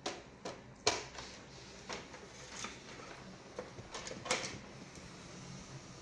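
A robot vacuum cleaner being handled and pulling away from its dock, with a few scattered plastic knocks and taps, the sharpest about a second in.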